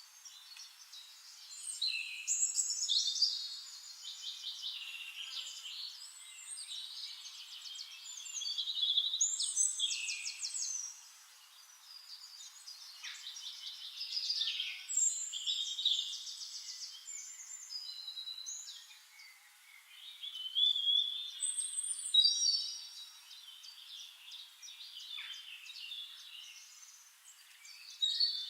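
Songbirds singing, several high-pitched chirping and trilling phrases overlapping, with the louder bursts every few seconds.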